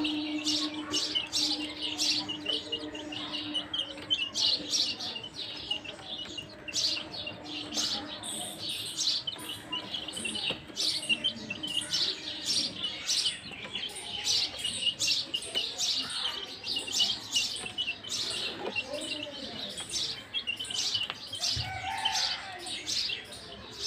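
A group of young chicks peeping continuously, many short high chirps overlapping at several a second.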